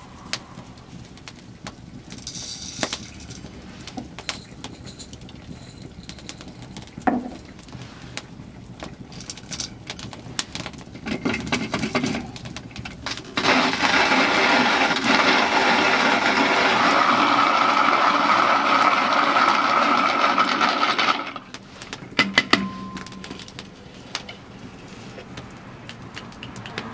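Hand-cranked box coffee mill with a brass hopper grinding salt: a steady grinding rasp starts about halfway in and lasts about eight seconds. Before it come scattered crackles and clicks from the wood fire, and a few clicks follow once the grinding stops.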